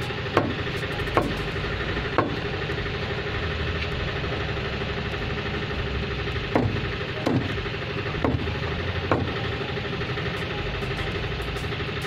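Large knife chopping through pieces of catla fish into a wooden chopping block: sharp knocks, three in the first couple of seconds and four more from about six to nine seconds in. Under them runs a steady hum like an idling engine.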